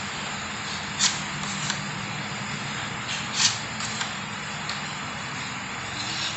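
Steel putty knife scraping wall putty (masilya) across a concrete wall in a few short strokes, the loudest about three and a half seconds in.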